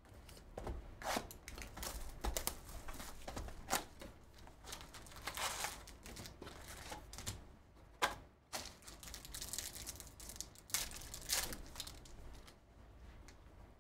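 Cardboard trading-card box being opened and its foil card packs pulled out and handled: irregular crinkling of foil wrappers, tearing and sharp clicks of cardboard.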